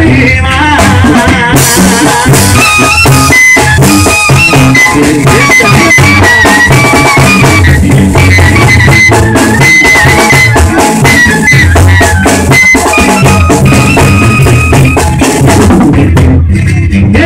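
Loud live Mexican tamborazo-style band music. A sousaphone carries the bass line and a large acoustic guitar strums, under dense drumming and a bright, held high melody line.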